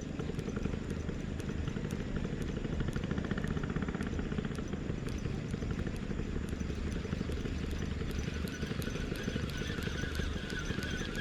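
Small boat engine running steadily at a low, even pitch. A thin high whine joins it about eight seconds in.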